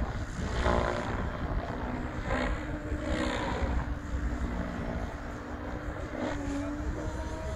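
Radio-controlled helicopter flying high overhead: a faint steady rotor hum that dips slightly in pitch about six seconds in, under heavy wind rumble on the microphone.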